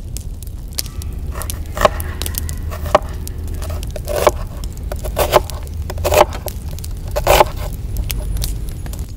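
Knife slicing through a peeled onion onto a wooden cutting board, one short scraping stroke about once a second, over a steady low rumble.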